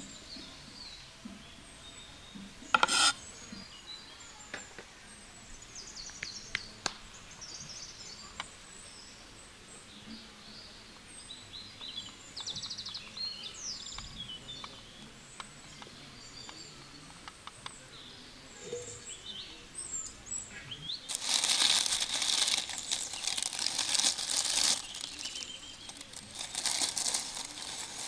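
Small birds chirping in the background, with a few scattered clicks. About three quarters of the way in, a loud crackling hiss starts, pauses briefly and comes back near the end.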